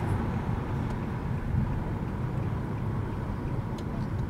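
Steady road and engine noise of a car driving, heard from inside the cabin: a low rumble with a lighter hiss above it.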